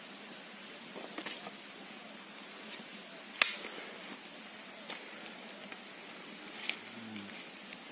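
Small wood fire burning around a green bamboo tube: a faint steady hiss with a few sharp crackling pops, the loudest about three and a half seconds in.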